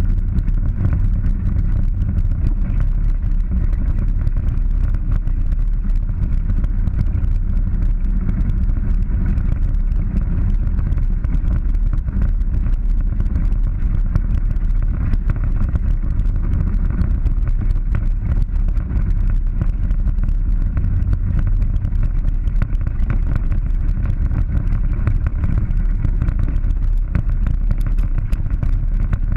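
Polaris 900 side-by-side driving steadily over a rough dirt trail: a continuous low engine and road rumble with frequent small clicks and knocks from the bumpy ride.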